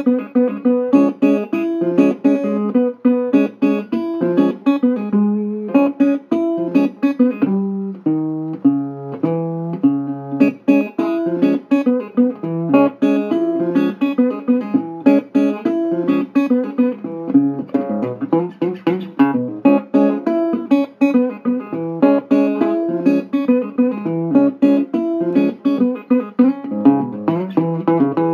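Acoustic guitar music, a steady run of plucked notes and chords with no singing.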